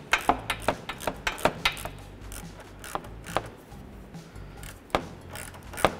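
Sharp metallic clicks and taps from handling a steel worm-drive hose clamp on a rubber radiator hose. They come in a quick irregular run for about two seconds, then only a few scattered clicks.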